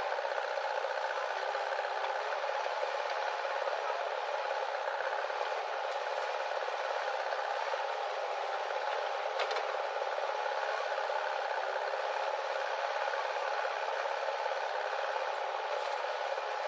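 Machinery running steadily, with a continuous rattling, scraping mechanical noise.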